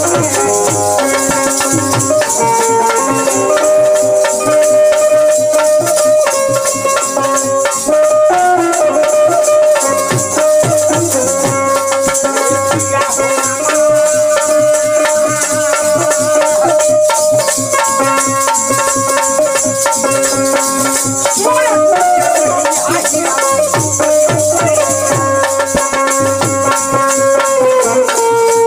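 Folk ensemble music: a wooden kartal clapper with metal jingles rattling steadily, a dholak drum keeping time, and a bulbul tarang (Indian banjo) playing a melody of long held notes that step up and down.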